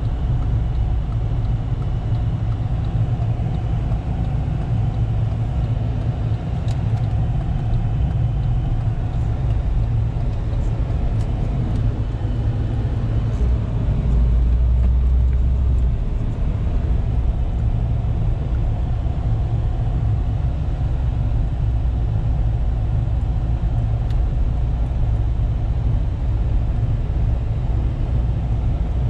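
Cadillac DeVille's Northstar V8 with an aftermarket Thrush exhaust and deleted resonator, heard from inside the cabin while cruising: a steady low exhaust rumble that swells louder for a couple of seconds about halfway through.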